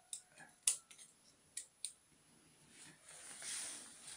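Steel surgical scissors snipping along a metal ear-cropping clamp on a pit bull's ear: a quick series of short, sharp clicks in the first two seconds, the loudest one about 0.7 s in. A soft rustle follows in the second half, as the clamp and ear are handled.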